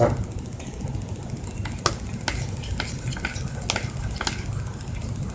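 Slime mixture being stirred in a bowl: scattered small clicks and taps of the stirring utensil over a steady low hum.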